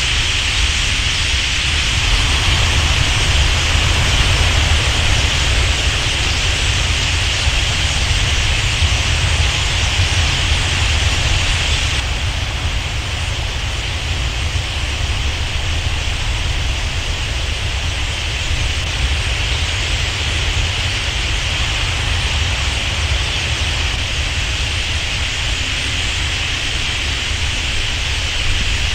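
Thousands of common starlings leaving their reedbed roost at dawn: a steady rush of massed wingbeats and calls that eases slightly after about twelve seconds.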